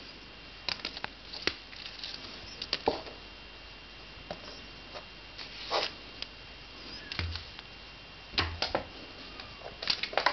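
Bengal cats batting and pawing at a shiny lip-shaped toy: scattered crinkles, clicks and rustles at irregular intervals, with two short soft thumps a little after the middle.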